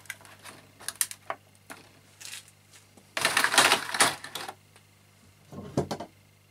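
Plastic screwdriver tray and screwdrivers being handled: a few sharp clicks and rattles, then a longer rustling scrape in the middle, and more clicks near the end.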